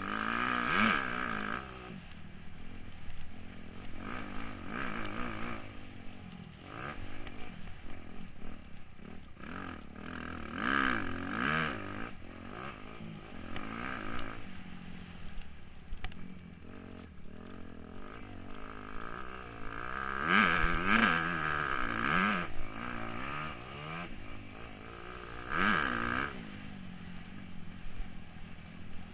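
Motocross bike engine heard from an onboard camera, revving hard and easing off again and again in rising and falling sweeps as the rider accelerates and brakes around a dirt track, with several louder surges.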